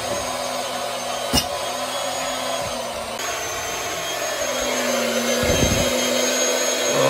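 Electric pump running steadily as it drains the old water heater's tank, with a sharp click about a second in and a brief low thump a little past halfway.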